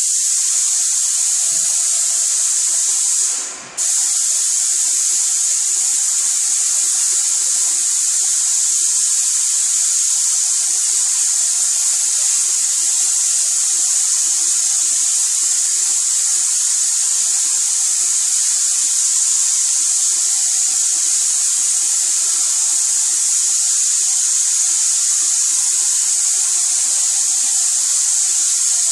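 Airless paint spray gun hissing steadily as it sprays paint onto a wall. The spray briefly stops about three and a half seconds in, then starts again.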